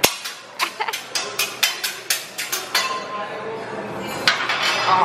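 Hibachi chef's metal spatulas clacking against each other and tapping on the steel teppanyaki griddle in a quick, uneven rhythm of sharp, ringing metallic strikes, several a second.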